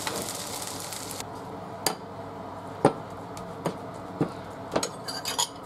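Fried rice sizzling in a frying pan for about the first second, stopping abruptly. Then a wooden spatula knocks against a plate in a handful of sharp clinks, several close together near the end, as the fried rice is dished up.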